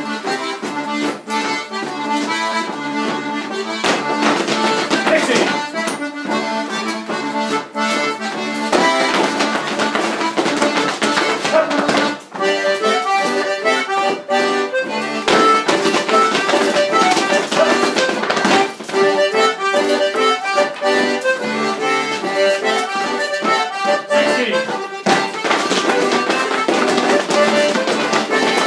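Accordion playing a traditional tune for rapper sword dancing, with frequent sharp clicks and knocks from the dancers' stepping and swords throughout.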